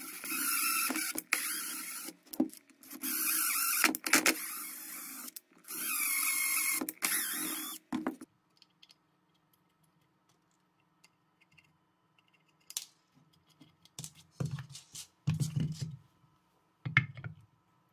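Makita cordless drill running in several short bursts as it drills small holes into wooden blocks. It then stops, and the rest is quiet handling with a few knocks and thumps near the end.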